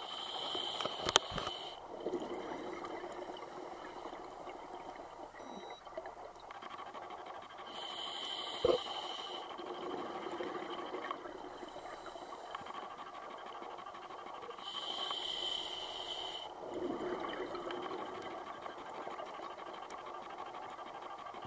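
A scuba diver breathing through a regulator underwater: three hissing inhalations about seven seconds apart, each followed by the rumbling, bubbling noise of exhaled air. Two sharp clicks stand out, about a second in and about nine seconds in.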